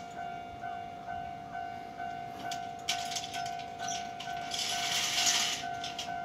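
Railway level-crossing warning bell ringing steadily about twice a second. From about halfway, a Keio Line train's wheel and rail noise rises and becomes the loudest sound.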